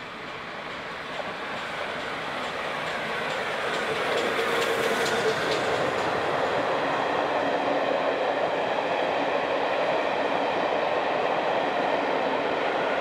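Steam train hauled by 7029 Clun Castle, a GWR Castle-class four-cylinder 4-6-0, passing at speed: the sound grows louder over the first four seconds as the engine comes up, with a run of wheel clicks as it goes by. It then settles into the steady rumble and rattle of the coaches rolling past.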